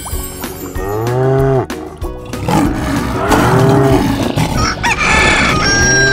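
Cow mooing three times, each moo a long call that rises and falls in pitch, over background music. A higher-pitched call sounds about five seconds in.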